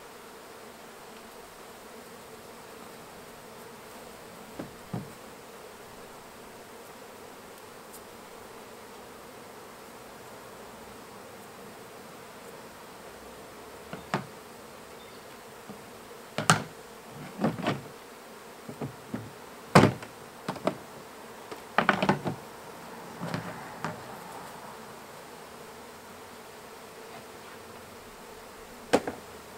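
Honey bees buzzing steadily around opened hives. From about halfway in come a string of sharp knocks and clunks from wooden hive frames and boxes being handled, with one more knock near the end.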